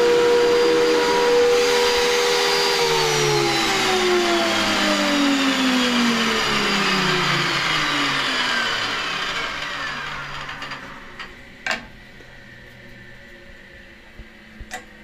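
Chip extractor motor and fan serving a Belmash 2200 thickness planer, running steadily, then switched off about three seconds in; its whine falls steadily in pitch and fades as it coasts down over about seven seconds. A few sharp clicks follow near the end.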